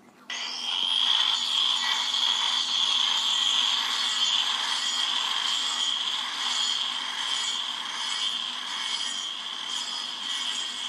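Electric angle grinder comes in abruptly and runs steadily with a high whine, its disc grinding wood off the wooden orthopedic block glued to a cow's claw to change the block's angle.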